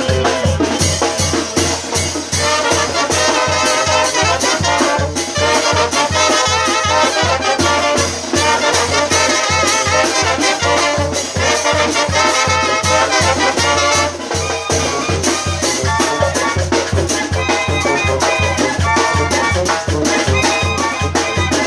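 Mexican brass banda playing a son: trumpets and trombones carry the melody over a steady, even low beat.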